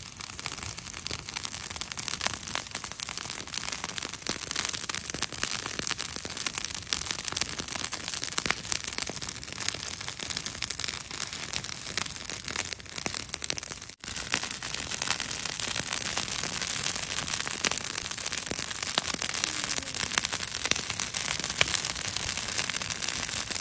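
Piles of dry cut brush burning with a dense, constant crackling, broken off once briefly about halfway through.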